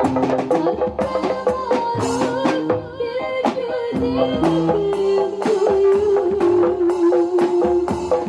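Modern marawis music: hand drums beating a fast, even rhythm under a held, wavering melody line.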